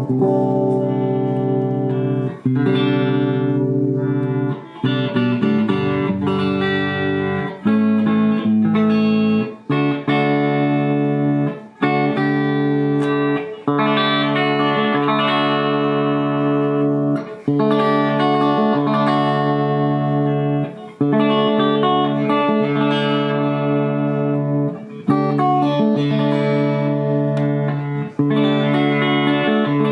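Fender Japan ST62-50 Stratocaster electric guitar played through an amp: chords strummed and left to ring, changing every two to four seconds with brief breaks between them.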